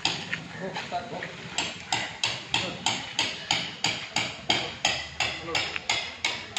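Rhythmic hammer blows, about three sharp strikes a second, easing briefly near the start, with faint voices underneath.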